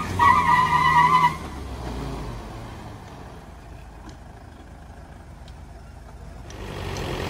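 Force Gurkha and Mahindra Thar straining against each other in a tug of war, with a loud wavering tyre squeal on the concrete for about the first second, typical of wheelspin. The engines then run on more quietly under load, rising again near the end.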